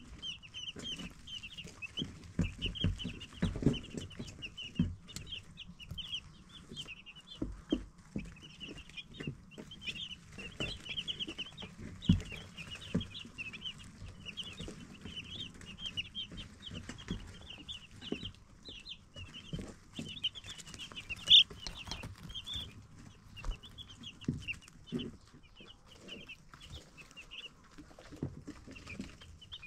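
A brood of baby chicks peeping without pause, many short high chirps overlapping, with scattered soft low thumps among them.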